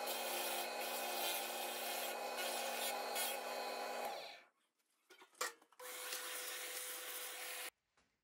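Benchtop drill press running a Forstner bit into a plywood block, the bit cutting steadily, then the motor switched off and winding down about four seconds in. After a few small clicks and a sharp knock, another steady machine run, with one held tone, starts and cuts off just before the end.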